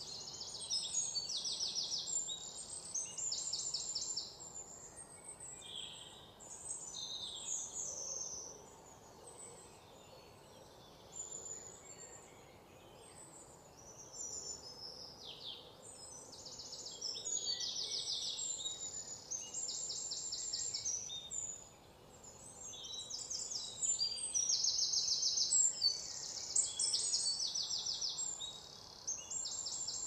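Green bee-eaters calling: short, high, rapidly trilled notes repeated in busy clusters, with a few downward-sliding chirps. The calls thin out for several seconds in the middle and pick up again near the end.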